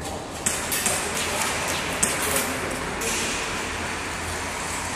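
A person moving quickly on foot, with clothing and gear rustling and a few sharp knocks, the loudest about half a second and two seconds in.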